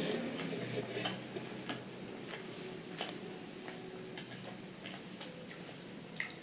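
Close-miked chewing of fried chicken wings with the mouth closed: soft wet mouth clicks and smacks, one or two a second, at an irregular pace.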